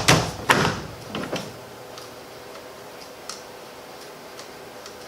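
Mazda Miata steering wheel being banged on to knock it loose from the steering shaft, with the retaining nut left on a few threads: two sharp knocks in the first half second, two weaker ones a little after a second in, then only faint clicks.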